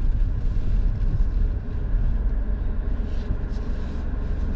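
Car cabin noise: a steady low rumble of the engine and tyres as the car rolls slowly into a parking spot.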